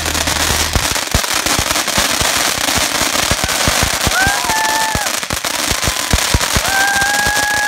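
Ground fountain firework crackling: a dense, rapid run of sharp pops and crackles over the hiss of its spark spray. Two long, held high-pitched calls rise over it, about four seconds in and again near the end.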